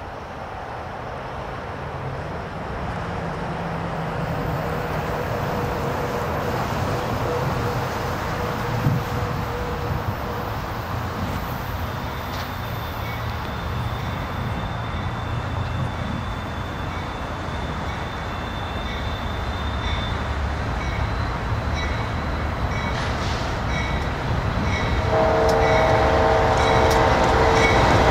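Two BNSF GE Dash 9-44CW diesel locomotives approaching at the head of a freight train, their engine rumble growing steadily louder. Near the end, a multi-note air horn chord sounds and holds as the locomotives draw close.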